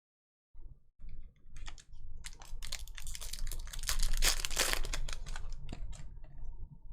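Crinkling and crackling of a trading-card pack's wrapper being torn open and handled, a dense run of crisp crackles heaviest in the middle.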